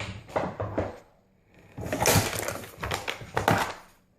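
Tools and small parts being handled at a workbench: two bursts of rustling, scraping and rapid clattering taps.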